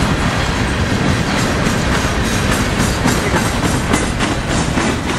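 Steel coal hopper cars of a freight train rolling past close by: a steady rumble with repeated clicks as the wheels cross rail joints.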